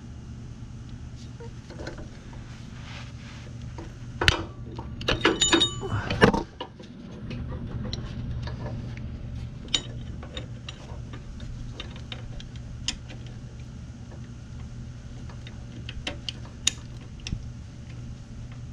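Metal clinks and rattles of hand tools and parking-brake cable hardware being worked by hand, with a dense flurry of clicks about four to six seconds in, then scattered single ticks. A steady low hum runs underneath.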